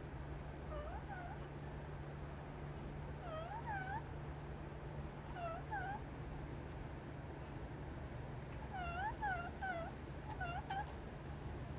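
Pet parrot giving short chirping calls in pairs and small clusters, each call dipping and then rising in pitch, about five clusters spread over the stretch, the busiest near the end.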